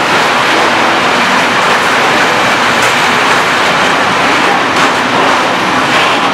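Freight train of covered hopper wagons rolling past at close range: a steady loud rumble and hiss of steel wheels on rail, with a few short clacks over the rail joints as the last wagons go by.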